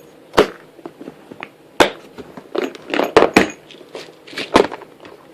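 Irregular sharp clicks and knocks of plastic organizer cases and the small metal leatherworking hardware in them being handled and set down, a dozen or so in a few seconds.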